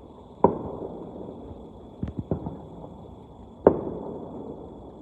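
Distant fireworks going off: a handful of muffled booms with a rolling echo after each, two loud ones about half a second in and near the end, and a quicker, softer pair in between.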